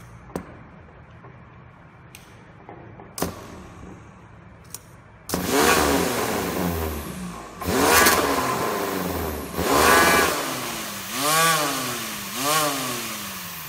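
Homemade grass trimmer's 775 DC motor with a two-bladed metal cutter, run in short surges about five times from about five seconds in, each a whine that rises in pitch and then winds down. A few sharp clicks come before it starts.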